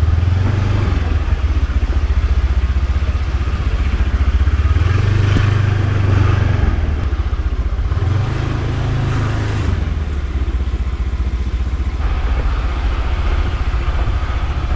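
Rented motor scooter running as it is ridden along a road, with a steady low rumble of engine and road noise that swells and eases a couple of times.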